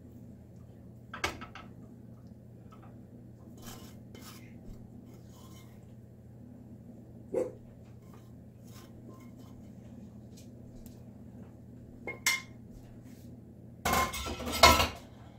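Wooden spoon scraping and tapping against a stainless-steel skillet as scrambled egg is scooped out, with a few separate knocks. Near the end a louder clatter of the pan, the loudest sound.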